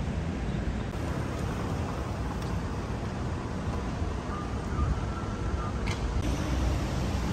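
Steady low outdoor rumble of distant traffic, with a faint short tone about four seconds in and a single click near six seconds.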